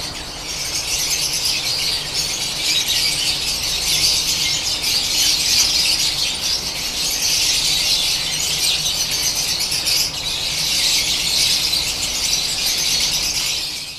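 Many lovebirds in an aviary calling at once: a continuous, high-pitched chattering din that never lets up.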